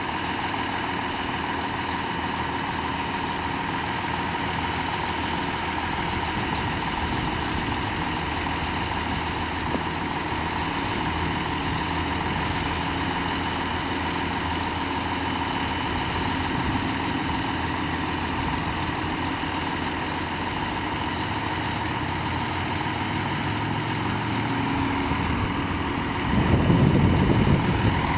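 Truck-mounted crane's diesel engine running steadily at idle as it lowers a suspended load. About two seconds before the end a louder low rumble comes in over it.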